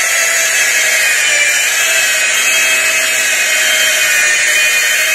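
Electric rotary buffer running steadily with a foam cutting pad and medium-cut compound against a wooden rifle stock, a steady motor whine. It is the cutting stage of buffing, taking out sandpaper scratches before polishing.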